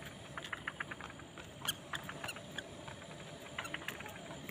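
Faint, irregular small clicks and ticks, scattered unevenly, over a quiet outdoor background.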